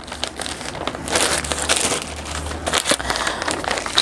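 Plastic mailing bag crinkling and rustling as hands pull it open, with irregular crackles.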